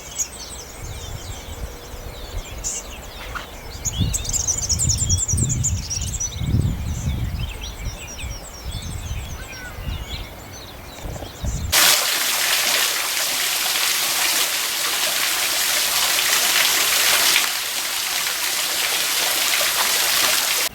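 Birds chirping over an uneven low rumble. About twelve seconds in, the sound cuts abruptly to a steady rush of running water.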